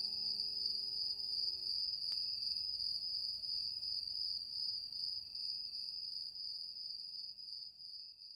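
Crickets trilling steadily, a high, even night-time chirr. The last low held note of the music dies away in the first couple of seconds, and the trilling fades out near the end.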